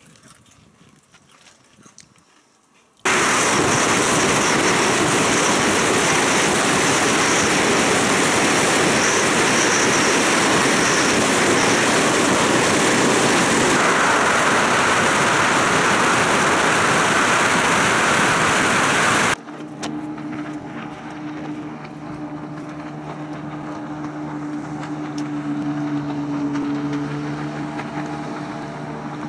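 Loud wind rushing over the microphone of a moving motorcycle. It starts suddenly about three seconds in and cuts off abruptly about two-thirds of the way through. Then comes a steady low hum from a motorboat engine towing a water skier.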